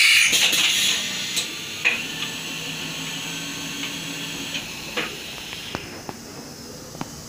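Compressed air hissing loudly and fading about a second in, then a CNC milling machine's steady low hum with a handful of sharp clicks from the pneumatic gripper loader and the machine moving.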